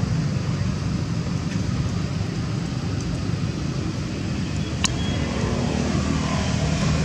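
Steady low rumble of motor traffic, with one sharp click about five seconds in.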